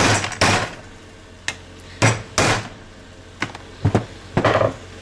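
Small white plastic housing of a carbon monoxide detector's transformer being knocked and cracked apart by hand, a run of sharp knocks, several in close pairs.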